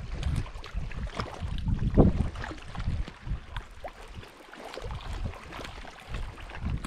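Wind buffeting the microphone in gusts, over small waves lapping against a rocky lakeshore, with scattered light clicks.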